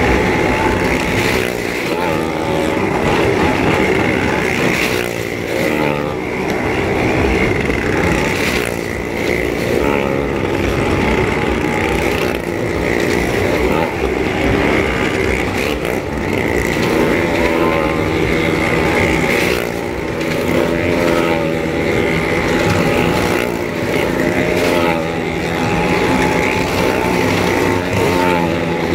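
Vehicle engines running continuously as they circle the wall of a well-of-death pit, their pitch rising and falling over and over.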